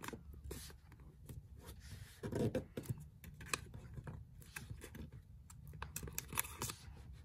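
A square of origami paper being folded and creased by hand: soft crackling and rustling with scattered small clicks, and a louder rustle about two and a half seconds in.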